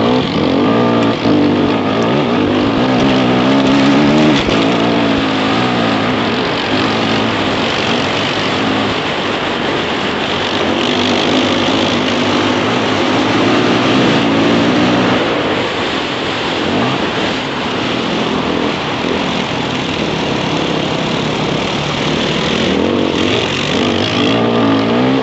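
Dirt bike engine heard close up from the rider's helmet, its pitch rising and falling again and again as it revs while riding, over a steady rushing noise of wind and the trail.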